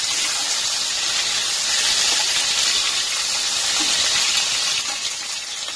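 Marinated chicken pieces sizzling steadily in hot mustard oil in a kadai as they are lightly fried, easing slightly near the end.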